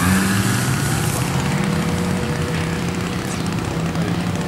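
Propeller and motor of a large RC P-47 Thunderbolt model plane at high power as it takes off and climbs away. A steady drone whose pitch drops slightly about halfway through.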